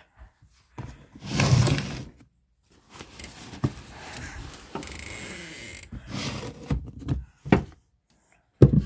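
Handling noise and rustling as the recording phone is moved about, with a few knocks and thumps. The loudest is a rush of rustling about a second in, followed by a softer stretch of rubbing with small clicks and two sharp knocks near the end.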